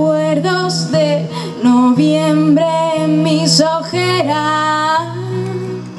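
A woman singing a waltz live, accompanying herself on a strummed acoustic guitar; her voice drops out about five seconds in, leaving the guitar.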